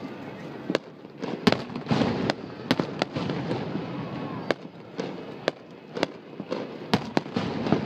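Fireworks show: about a dozen sharp bangs and pops at irregular intervals, over a continuous background rumble and crackle.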